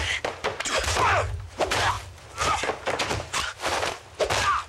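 Movie fight-scene sound effects: a rapid, irregular series of punch and body-blow impacts and thuds, with short grunts between the hits.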